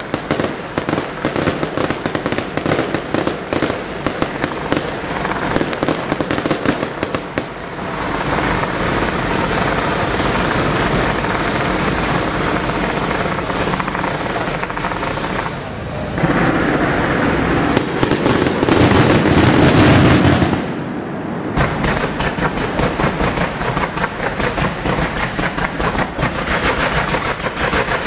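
Fireworks display: a dense, unbroken barrage of firework bangs and crackling from volleys of comets and stars. It thickens about eight seconds in, swells to its loudest for some four seconds from about sixteen seconds, then cuts off abruptly before rapid bangs take up again.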